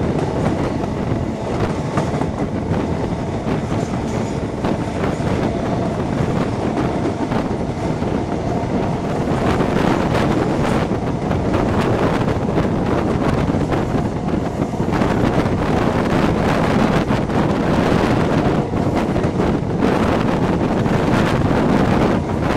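High Speed Train (class 43 HST set) running at speed, heard from outside a passenger coach window: steady rumble of the wheels on the rails with wind rushing over the microphone. It grows louder about ten seconds in.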